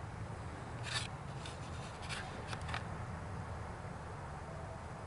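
Handling noise on a handheld camera: a few small clicks and rubs about a second in and again between two and three seconds, over a low steady rumble.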